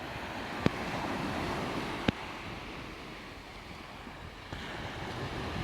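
Wind on the microphone over the wash of sea water, a steady rushing noise, broken by two sharp clicks about a second apart near the start.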